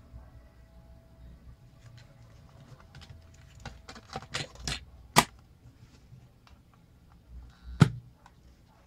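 Plastic clicks and rattles as a cassette is handled and loaded into the door of an Aiwa HS-PS100 portable cassette player. Two sharp plastic snaps stand out, one about five seconds in and a louder one near the end as the cassette door is shut.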